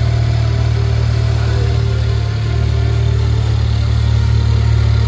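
Honda Civic Type R FK8's turbocharged 2.0-litre four-cylinder idling steadily, with an upgraded RV6 turbo fitted.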